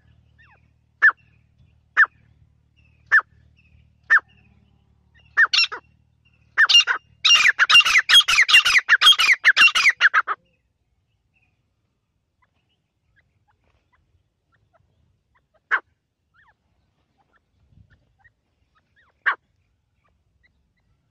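Grey francolin (teetar) calling: short single notes about once a second, building into a few seconds of rapid, crowded calling that cuts off suddenly, followed by two more lone notes with long gaps between them.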